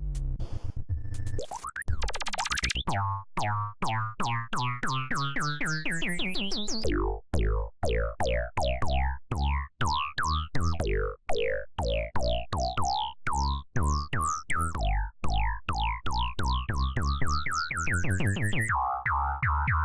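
Oscilloscope music: synthesizer music whose waveforms draw pictures on an oscilloscope screen. A quick beat of short hits, each falling sharply in pitch, runs over tones that keep sliding upward.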